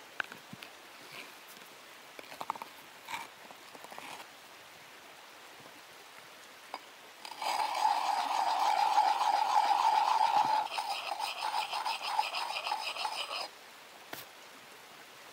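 Forge blower whirring as it is worked to blow air into the hearth, starting about seven seconds in and running for about six seconds. It is steady at first, turns into a rapid pulsing in its last few seconds, then stops abruptly. Before it come a few faint knocks of handling at the hearth.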